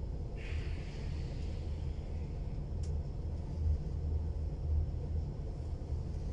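Steady low rumble of a passenger train's wheels and running gear, heard from inside the carriage as it runs slowly into a station. A brief hiss comes about half a second in, and a single click near three seconds.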